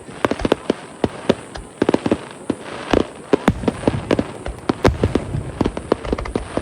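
Fireworks bursting at close range: a rapid, irregular string of sharp bangs and crackles. Deeper booms join in after about three and a half seconds.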